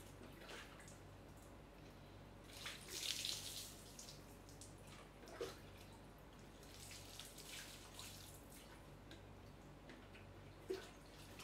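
Water scooped from a plastic bucket and poured and splashed over a person, with the biggest splash about three seconds in and another around seven seconds. Two short sharp clicks come in between and near the end.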